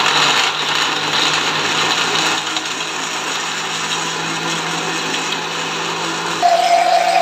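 Countertop electric blender running steadily, blending peaches with ice cubes and cold water into juice. The sound is busier in the first couple of seconds, then smooths out. Near the end it changes suddenly to a louder, steady higher whine.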